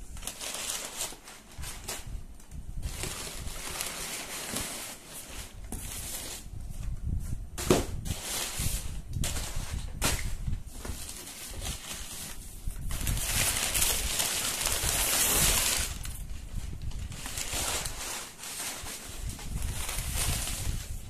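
Brown kraft packing paper crinkling and plastic wrap rustling as they are pulled about inside a cardboard box, in irregular handfuls, with a couple of sharp knocks partway through and a longer loud rustle a little past the middle.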